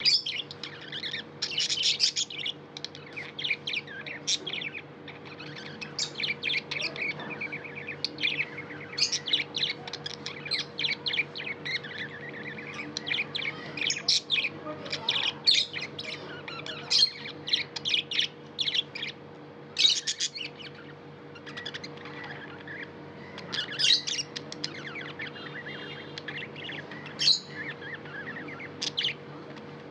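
Budgies (budgerigars) chirping in quick, short calls throughout, over a steady low hum.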